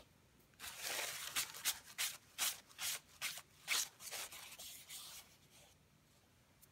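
Fingertips rubbing dried masking fluid (Frisket) off watercolour paper to lift it. The rubbing comes as a quick run of short strokes, about two or three a second, starting about half a second in and fading out about five seconds in.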